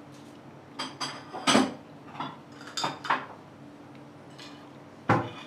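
Ceramic dishes and utensils clinking and knocking, a string of sharp clinks with brief ringing over the first few seconds, the loudest about a second and a half in, and one more knock near the end.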